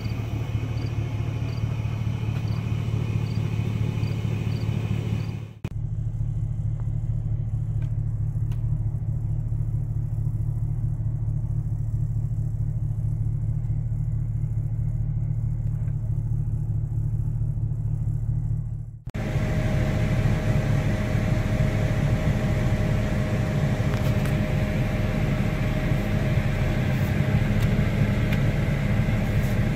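Car engine idling steadily, a low hum heard from inside the cabin, with two abrupt changes in level where the recording cuts.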